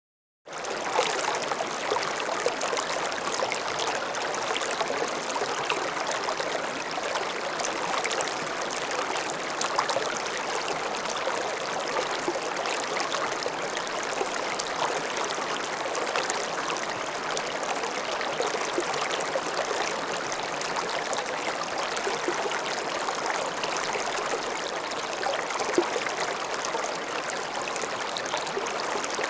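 Small stream flowing and babbling steadily, water trickling and splashing over stones with many small bright splashes.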